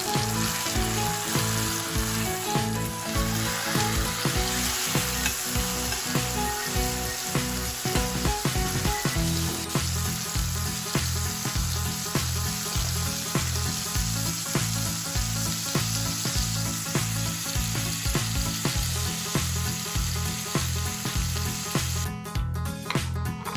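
Beef steak sizzling steadily in hot oil in a cast-iron skillet as it sears, with background music underneath.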